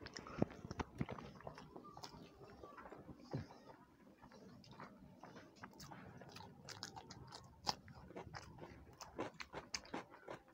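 Close-up eating sounds: chewing and biting with crunching, the crunches coming thicker in the second half.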